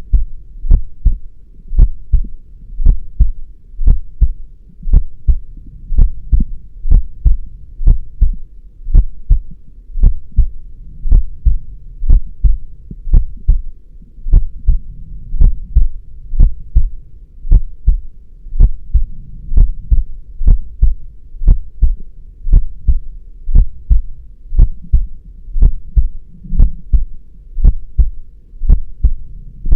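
Human heartbeat beating steadily, each beat a low double thud (lub-dub), about one a second.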